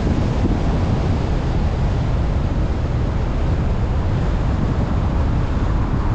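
A car driving, heard as a steady rumble of road and wind noise, heaviest in the low end.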